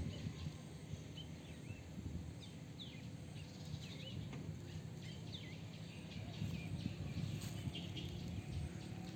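Small birds chirping, many short calls scattered throughout, over a steady low outdoor rumble.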